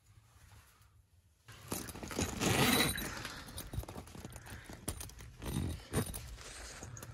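Near quiet for about a second and a half, then irregular rustling, scuffing and small knocks of fabric being handled, loudest about two and a half seconds in: someone moving against the canvas tent wall toward the door.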